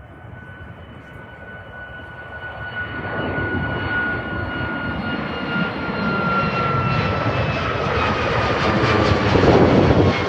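Boeing 737-9 MAX jet airliner's CFM LEAP-1B engines growing steadily louder as it climbs out overhead on departure, a whine sliding slowly down in pitch over the roar.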